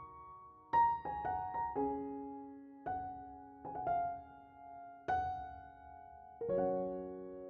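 Background piano music: single notes and chords struck at an unhurried pace, each ringing and fading before the next.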